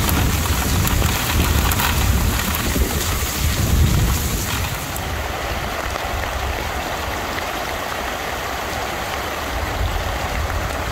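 Heavy thunderstorm rain pouring down with a low rumble underneath. About four and a half seconds in, it cuts suddenly to a duller, steady rushing of rain and water running across a flooded road.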